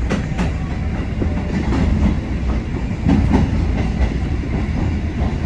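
Red Kotoden electric train running, heard from inside its cab: a steady low rumble with the clickety-clack of the wheels over rail joints and points, two clicks close together about three seconds in.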